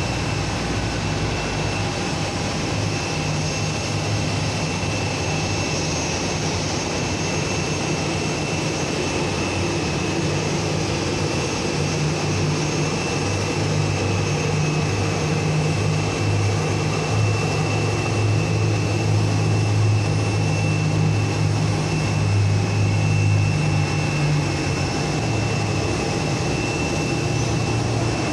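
Airliner's jet engines running with a steady high whine over noise, alongside the low hum of a pushback tug's engine during pushback. The low hum grows stronger about halfway through.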